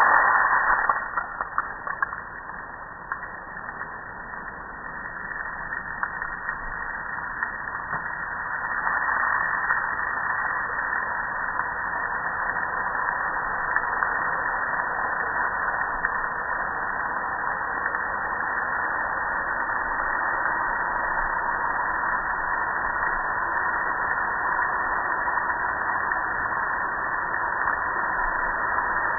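Water from a hose spraying onto a gas grill's lid and front panel: a steady hissing splatter that starts abruptly and grows louder and steadier about nine seconds in.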